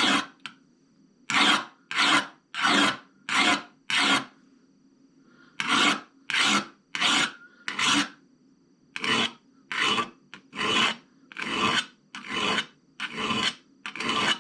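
A 180-grit diamond hone being stroked back and forth by hand across a clamped steel scissor blade, grinding the edge bevel. The rasping strokes come about one and a half a second, in three runs broken by short pauses.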